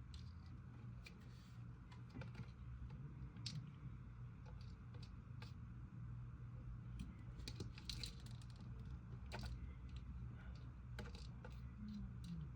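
Cotton Candy Dream Mallow slime being mixed by hand, giving irregular sticky clicks and pops over a steady low hum.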